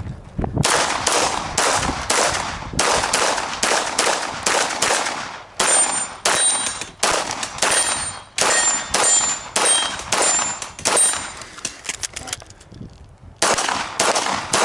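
Glock 34 9 mm pistol fired rapidly, about two to three shots a second, with steel targets ringing out on hits in the middle stretch. The firing stops for about a second and a half near the end, then resumes.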